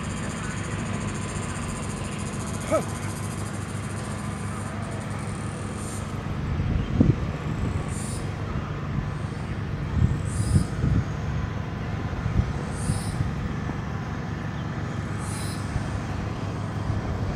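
Outdoor ambience: a steady low rumble with a few louder low thumps around the middle. A faint high-pitched chirp repeats about every two and a half seconds in the second half.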